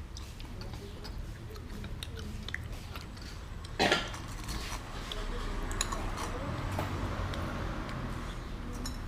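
Eating at a table: small clicks and clinks of utensils against a noodle bowl, with one short loud knock or clatter about four seconds in, over a steady low background hum.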